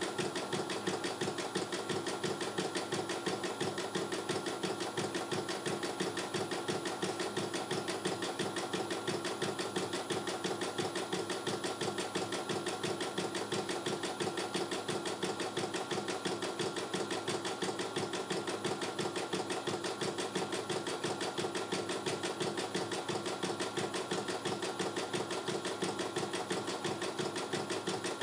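CNY E900 computerized embroidery machine stitching out a design during a test run: a fast, steady rhythm of needle strokes that runs on without a pause as the embroidery arm moves the hoop.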